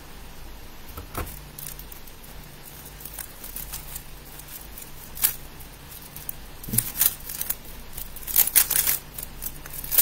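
3x3 speedcube being turned rapidly by hand, its layers clicking and clacking. There are a few isolated clicks and a knock at first, then dense, fast clicking over the last few seconds as the solve gets under way.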